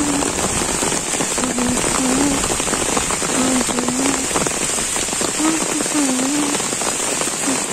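Torrential monsoon rain pouring onto trees, leaves, grass and a dirt path: a dense, steady hiss and patter of countless drops.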